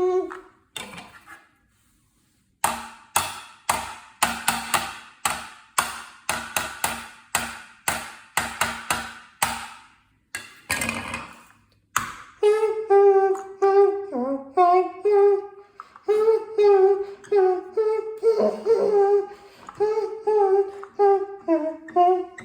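A quick run of sharp, ringing hits, about three a second, for several seconds. After a short break, a voice carries a tune in short notes that change pitch every half second or so.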